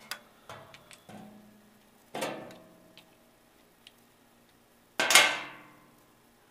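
Metal clinks and clanks of a drill chuck, chuck key and hole saw being handled over a milling machine's steel table. There are a few small clinks at first, a ringing clank about two seconds in, and the loudest clank about five seconds in, which rings on for about a second.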